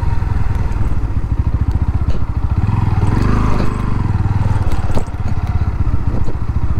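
Bajaj Pulsar 160 motorcycle's single-cylinder engine running steadily as the bike is ridden over a bumpy dirt trail, with one sharp knock about five seconds in.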